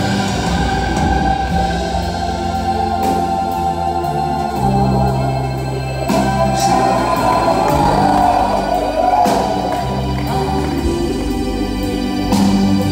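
A live band playing a slow, sustained rock song, recorded from the audience. Organ-like chords and held bass notes change every second or two, with backing singers and electric guitar over them.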